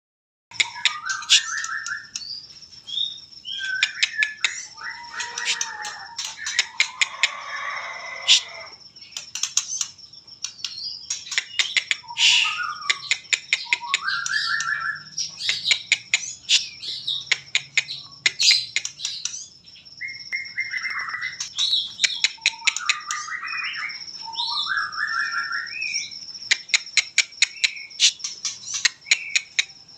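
White-rumped shama singing continuously: varied whistled phrases broken by rapid stuttering runs of sharp, clicking notes, the 'trotol' style prized by songbird keepers. A steady high-pitched tone hums underneath much of the song.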